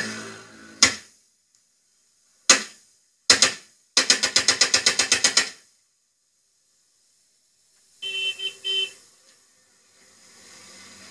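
A Kalashnikov-style automatic rifle fired into the air: single shots, a quick pair, then a full-automatic burst of about a dozen rounds. About three seconds later come three short horn toots.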